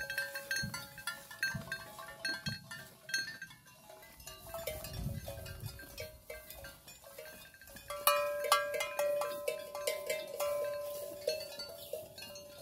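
Bells on a grazing cattle herd clanking irregularly at several pitches. About eight seconds in, a louder clang rings on.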